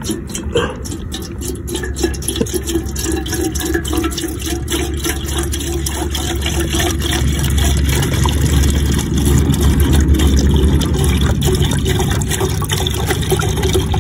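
Milk being poured in a long continuous stream into a pot, the pour growing steadily louder as it goes.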